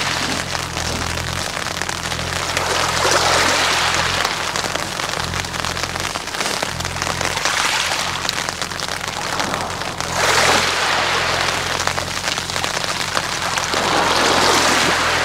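Small waves washing over a pebble shore, a hiss that swells and fades four times as each wave runs up and draws back through the stones.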